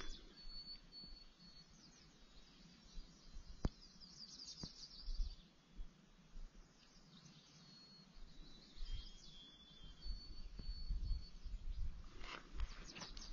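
A songbird singing short, thin, steady whistled notes in a few separate phrases over a quiet background. Footsteps on the trail start up again near the end.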